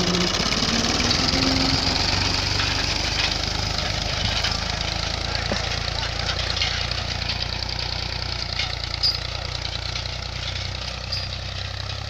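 Massey Ferguson 240 tractor's diesel engine working under load as it pulls a plough across the field, a steady low engine note that gradually fades as it moves off, with crackling noise over it.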